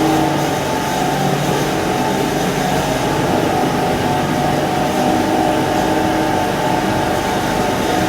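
Industrial flake ice machines and their refrigeration plant running: a loud, steady machine hum with several constant tones over a noisy whir.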